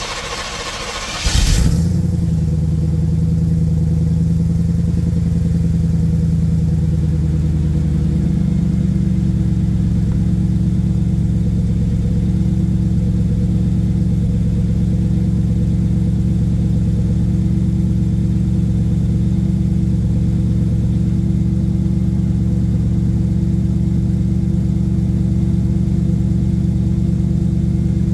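A V8 with a catless Magnaflow exhaust is cold-started: the starter cranks for about a second and a half, then the engine catches. It settles into a steady, deep fast idle through the exhaust, and the idle note shifts slightly lower about eight seconds in.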